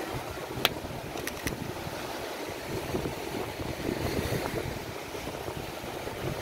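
A large bonfire of joss paper burning, a steady rushing noise broken by a few sharp pops, the loudest just under a second in. Wind buffets the microphone and surf washes in behind.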